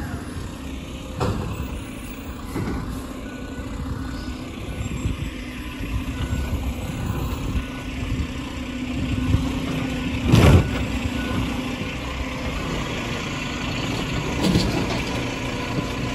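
Garbage truck engine running steadily as the truck moves slowly and stops at the curb, with a few short knocks and one loud bang about ten seconds in.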